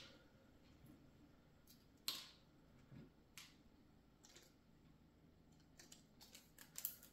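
Faint clicks and taps of small plastic model parts and screws being handled. One sharper click comes about two seconds in, and a quick run of light clicks comes near the end.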